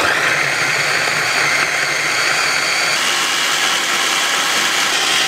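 Mitochiba CH100 electric food chopper running, its blades grinding shallots, garlic, chilies and spices with oil into a paste. The motor starts suddenly as the top is pressed down and runs at a steady pitch.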